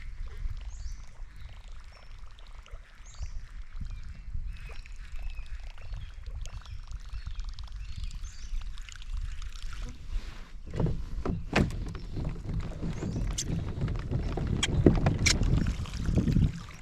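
Water lapping and moving around a kayak drifting on a river, over a steady low rumble. From about ten seconds in it grows louder and fuller, with several sharp knocks.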